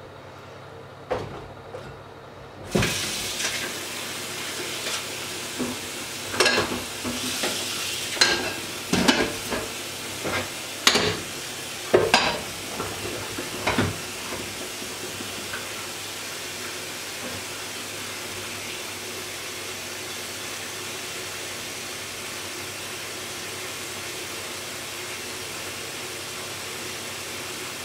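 Food sizzling in a hot pan: the sizzle starts suddenly a few seconds in and then holds steady. Over the next ten seconds or so a utensil clatters and scrapes against the pan as the food is stirred.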